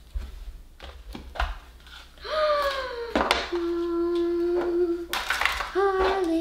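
Light plastic clicks and taps as toy capsule shells are handled and pulled apart, then from about two seconds in a person humming, a falling note followed by long held notes, with more plastic clicks over it.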